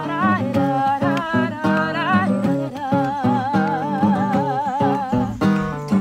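Classical guitar played with plucked notes and chords, with a woman singing a melody over it; about three seconds in she holds one long note with vibrato for a couple of seconds before the guitar carries on alone.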